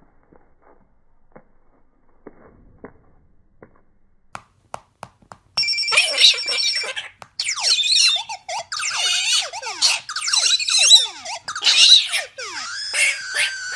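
Faint taps and clicks, then, about five and a half seconds in, a galah stepping and pecking on a smartphone's sound-effects app sets off a rapid jumble of electronic sound effects from the phone's speaker. It starts with a ringing tone and carries on as a busy string of sliding tones and clicks.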